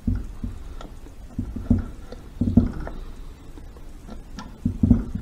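Shift fork rod being slid through the shift forks of a Harley 5-speed transmission and lined up by hand. The metal parts give scattered, irregular knocks and clicks as it goes.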